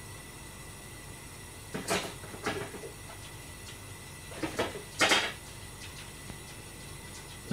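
A few short knocks and clatters of kitchen handling: two about two seconds in, then two more around four and a half to five seconds in, the last the loudest. A steady faint hum runs underneath.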